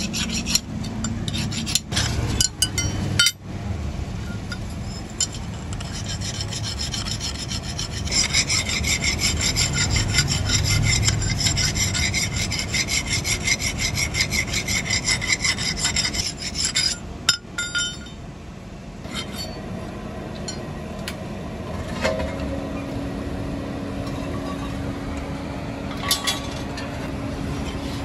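Hand file rasping back and forth over the steel of a hoe head on an anvil. The strokes are irregular at first, then a long run of quick, even strokes in the middle. Toward the end the filing grows fainter and a steady low hum comes in.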